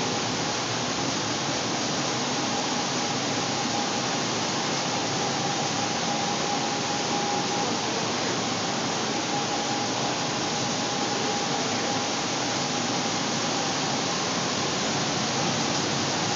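Steady rush of air from server racks' cooling fans and the room's precision air-conditioning units, with a faint steady whine above it.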